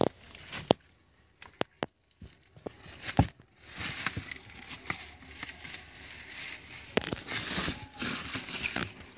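Rustling and crunching of dry plants and loose debris, with scattered sharp clicks of steps on stone. The rustling thickens from about three and a half seconds in.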